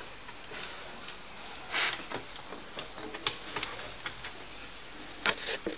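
Scattered sharp clicks and knocks, with two short scraping rustles about two seconds in and near the end, from a hand handling the plastic case of a Tandy Color Computer.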